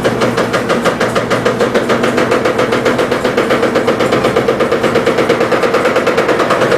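Electrolux LT15F top-load washing machine spinning an unbalanced load, its rear suspension rod knocking rapidly and evenly, many times a second, over the steady whine of the spin. The knocking comes from the tub bouncing the rod in its support, a suspension fault.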